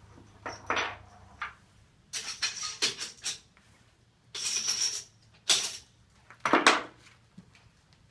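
Metallic clinking and rattling in about five short bursts from handling a Gatling gun and its .45-70 cartridges, with no shots fired.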